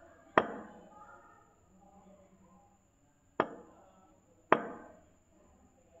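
Three sharp smacks, each dying away quickly: one about half a second in, then two more a little over a second apart near the middle.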